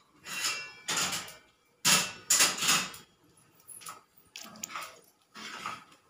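Rose-ringed parakeet splash-bathing in a shallow steel plate of water, flapping its wings and splashing in several short bursts, the loudest about two seconds in and softer ones near the end.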